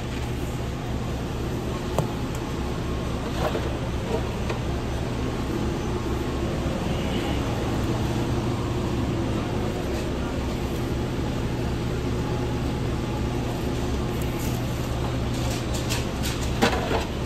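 Steady hum of fast-food kitchen equipment and ventilation running, with a few light clicks and knocks of food-prep handling about two seconds in and again near the end.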